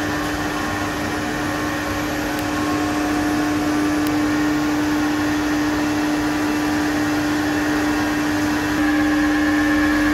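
Electric motor and pump of a Haas Mondomix continuous aeration mixer running: a steady hum with one strong held tone over a constant whir. Near the end the level steps up a little and a higher whine joins in.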